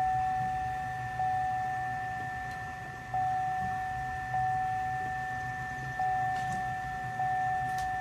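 A steady high electronic warning tone from the Escalade sounds throughout. A faint click comes every one to two seconds, each lifting the tone's loudness, as the ignition key is turned to crank three times. The starter makes no sound: a no-crank condition.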